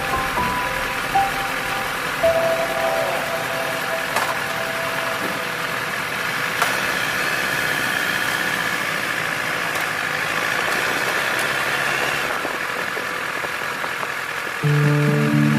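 Sport motorcycle engine running at low speed, heard steadily from a camera mounted on the bike. Music comes in near the end.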